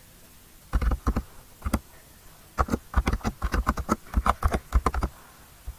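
Typing on a computer keyboard: a few key clicks about a second in, then a faster run of keystrokes that stops shortly before the end.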